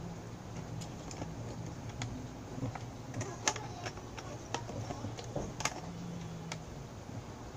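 Irregular light clicks and taps as a Poco X3 smartphone and small plastic parts are handled, over a faint steady low hum.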